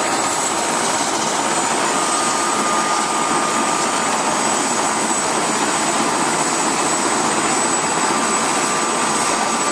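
Turbine helicopter running on the ground with its rotor turning: a steady high whine over a continuous rushing noise.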